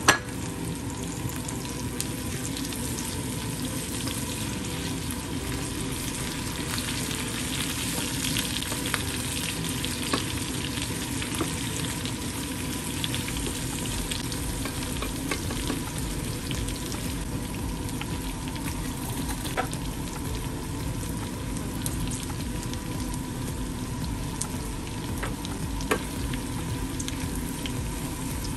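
Pork, kimchi and spring onions sizzling steadily as they stir-fry in a nonstick frying pan, with occasional short clicks and scrapes as a wooden spatula stirs them.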